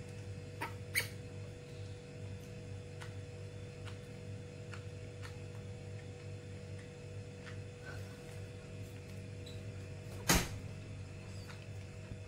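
Baby monkey's faint clicks and small squeaks, scattered and irregular, over a steady low hum. One sharp knock about ten seconds in.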